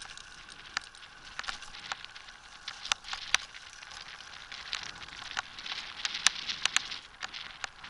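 Land yacht rolling on tarmac under sail: a steady hiss of wheels and wind with irregular sharp clicks and rattles from the craft's frame and rigging, busiest around the middle and again near the end.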